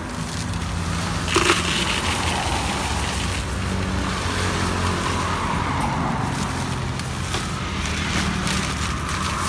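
Road traffic: a steady low engine hum with cars passing by, swelling and fading. A brief sharp noise stands out about a second and a half in.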